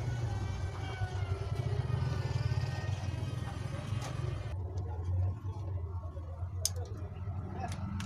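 A steady low rumble, with a few light clicks near the end as the fan's wire grille and plastic parts are handled.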